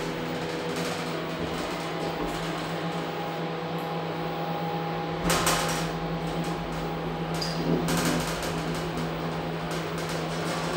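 Passenger lift car travelling, with a steady hum of the lift's drive and car. A brief knock about five seconds in, and another near eight seconds.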